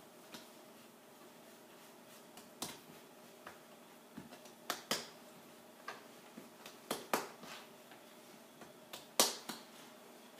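A dozen or so scattered sharp taps and light slaps of hands working bread dough on a wooden board; the loudest comes about nine seconds in.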